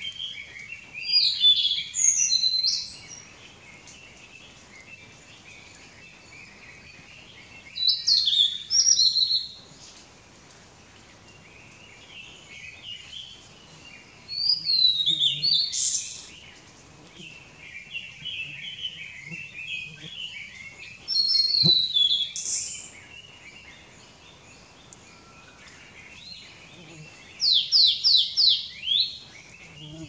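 Male blue-and-white flycatcher singing: five loud phrases of high whistled notes, each about two seconds long and about six seconds apart. Other birds twitter more quietly in between.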